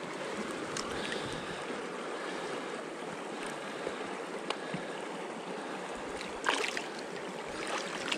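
Shallow mountain creek water rushing steadily around the legs of a wading angler. Hands working in the water make small splashes, the largest about six and a half seconds in.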